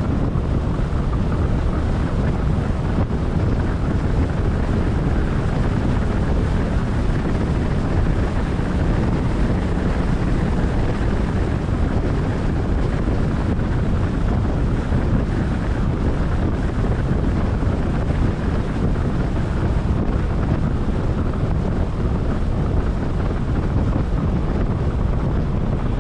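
Wind buffeting the microphone: a loud, steady rumbling noise with no letup.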